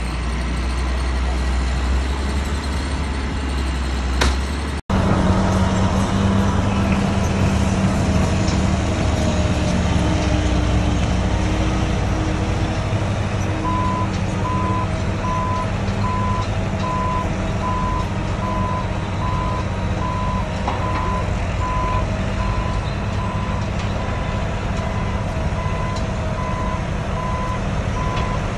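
Diesel earthmoving equipment running, at first a motor grader's deep engine rumble. After a sudden cut about five seconds in, a steady diesel engine note continues, and from about halfway a backup alarm beeps about once every three-quarters of a second.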